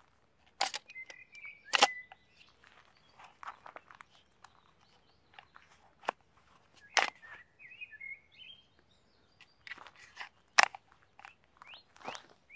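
Scattered sharp clicks and knocks of a folding shovel and a trouser belt being handled as the shovel is slid onto the belt, with a few bird chirps in between.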